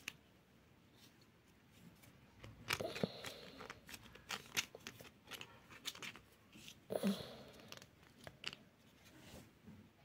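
Hard plastic parts of a mini washing machine's spin-dryer basket being handled and clipped together: scattered clicks, scrapes and rattles. They start about two and a half seconds in, with louder clusters near three and seven seconds.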